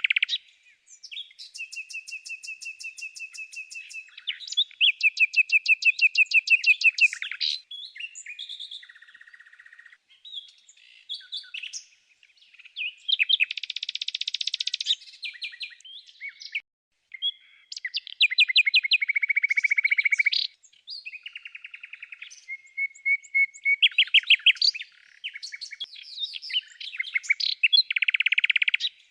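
Birds singing: a string of varied high-pitched phrases of fast trills and rapidly repeated notes, each one to three seconds long, separated by short pauses.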